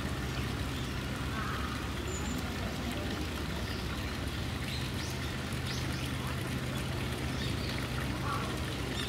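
Steady outdoor background noise: a constant low hum under an even hiss, with a few faint, brief high chirps about halfway through.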